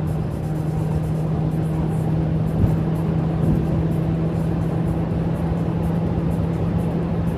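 Honda Civic FB7's four-cylinder engine and aftermarket Abarth exhaust droning steadily at high cruising speed, heard inside the cabin over road and wind noise.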